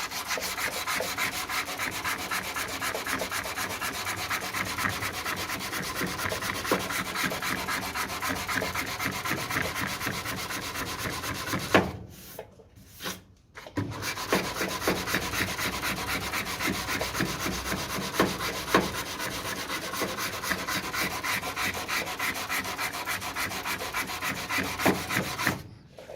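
Dry hand-sanding of body filler on a car door sill with 180-grit paper: steady scraping strokes that rub away the black guide coat to remove the coarser 80-grit scratches. The sanding pauses for about two seconds around halfway, then resumes and stops near the end.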